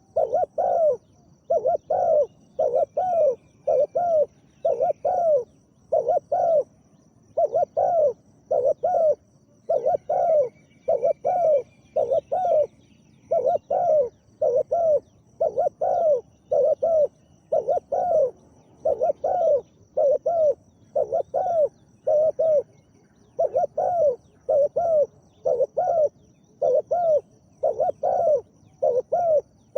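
Spotted doves cooing: deep coos in quick clusters of two or three notes, repeated over and over with short gaps. A faint high chirp is heard twice.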